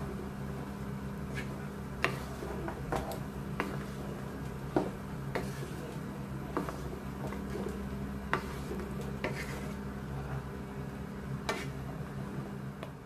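A wooden spatula stirring mutton pieces boiling in water in a wide metal pan, knocking against the pan at irregular intervals, with bubbling underneath and a steady low hum.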